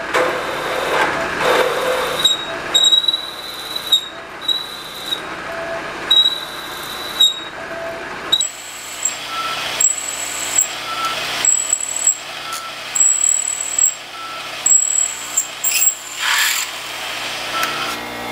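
Bridgeport milling machine drilling cast aluminium with a 5/8-inch drill bit, the spindle running a little fast for this drill. The cut gives a high whine that comes and goes in spells of about a second as the bit is fed in, stepping up in pitch about halfway through, with a few sharp clicks.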